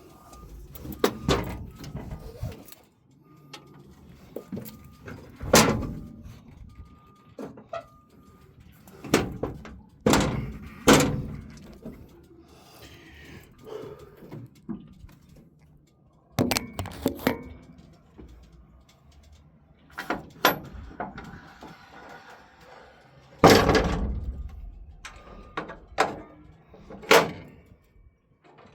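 Metal engine-compartment doors on a Hitachi 890 excavator being swung shut and latched: a string of irregular clanks and bangs, the loudest about two-thirds of the way through, with lighter metal clatter in between.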